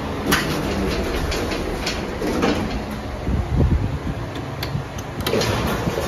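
1985 Mitsubishi Electric passenger lift: the car's sliding doors closing, with a sharp click near the start and a run of lighter clicks and knocks. A low rumble comes about halfway through as the car gets under way upward.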